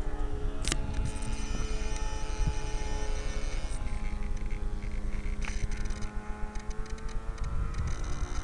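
Steady mechanical hum of the R/C helicopter's motor, picked up close by the onboard camera, its pitch stepping down slightly about four seconds in. A sharp knock sounds near the start.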